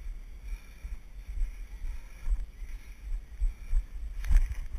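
Low, uneven rumble of wind and handling noise on a body-worn GoPro as its wearer walks down a dirt trail, with a few sharp knocks about four seconds in.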